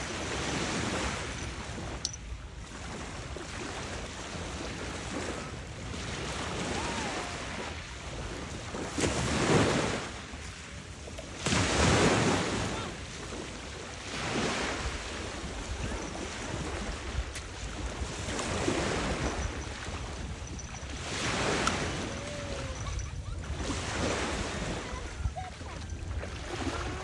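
Small waves breaking and washing up a sand-and-pebble beach, surging and falling back every few seconds, with two louder surges about ten and twelve seconds in.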